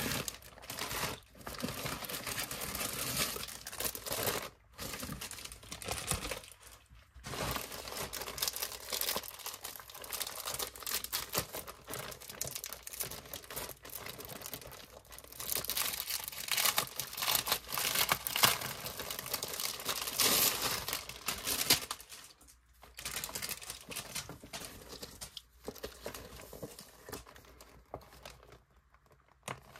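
Plastic packaging crinkling and rustling as hands pull items out of poly mailer bags and clear plastic sleeves, with some tearing of the plastic. It comes in irregular stretches with a few short pauses, loudest in the middle.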